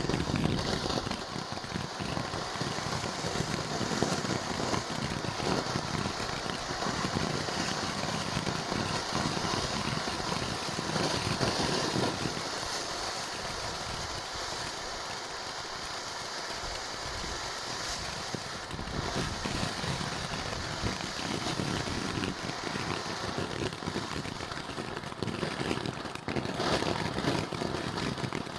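Black Cat Afterglow low-noise firework fountain burning: a steady spraying hiss laced with rapid crackling. Partway through the crackle thins to a smoother hiss for several seconds, then picks up again.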